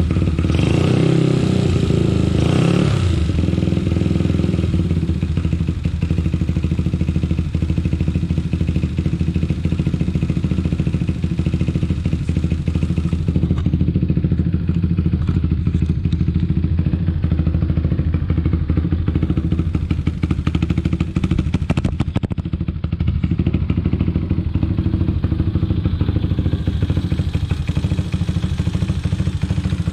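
A 1971 Honda SL70's small single-cylinder four-stroke engine running. The throttle is blipped briefly in the first few seconds, and then it settles into a steady idle.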